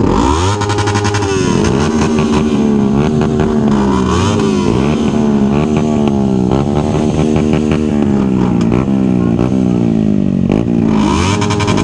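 Straight-piped Kawasaki Versys 300 parallel-twin revving hard through a stationary burnout. The revs climb over the first second, then are held high, surging up and down about once a second.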